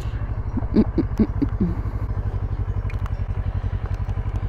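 Kawasaki ER-6n's parallel-twin engine running steadily at low revs, an even, rapid low pulse.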